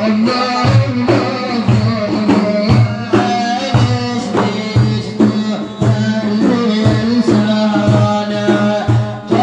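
Instrumental passage of an Arabic praise song: a steady, even drum rhythm under a held melodic instrument line, with no voice.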